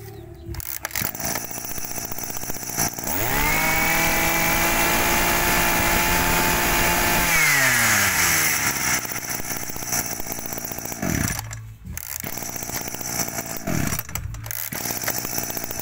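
A Makita brush cutter's 23cc engine running. It revs up about three seconds in, holds at high speed for about four seconds, then drops back to idle, with a few short revs near the end.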